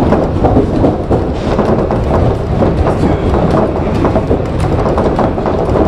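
Shonan Monorail 5000-series suspended monorail car running at speed between stations, heard from the driver's cab: a steady rumble with frequent small clicks and rattles.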